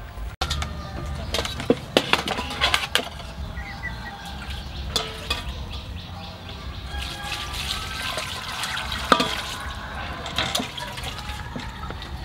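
Water sloshing and splashing in an aluminium basin as meat is washed in it by hand, with several sharp knocks of metal bowls and a strainer against the basin, the loudest about two seconds and nine seconds in.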